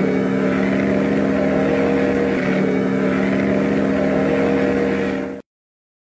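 Ship's horn of the ocean liner SS Andrea Doria sounding one long, steady blast, a low chord of several tones, which cuts off about five seconds in.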